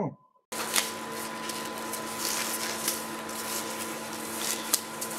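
Steady machine hum with a fixed low tone and an even hiss, like a running fan, starting abruptly about half a second in. A few light clicks and taps from handling on the bench sound over it.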